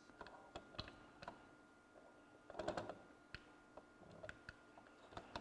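Faint, irregular small clicks and light taps of a hand tool against a turntable's metal gear mechanism as a part is worked back into line, with a short scuffle of handling a little before the middle.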